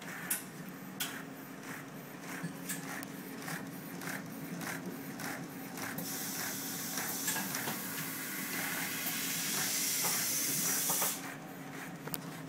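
DVD printers running: a steady machine hum with repeated clicks of the mechanism, about two a second. About halfway in, a loud hiss starts, runs for about five seconds and cuts off suddenly.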